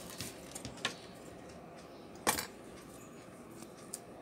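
Small clicks and taps of wires and parts being handled inside an opened plastic speaker housing, with one louder sharp click a little over two seconds in.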